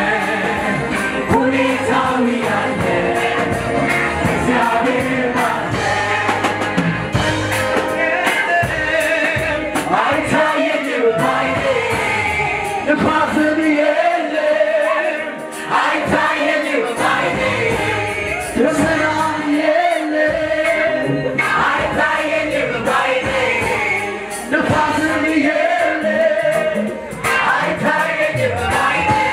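Live gospel worship song: a choir and lead singers singing together over a band with drums and keyboard. The low accompaniment drops away for a few seconds about halfway through while the singing carries on.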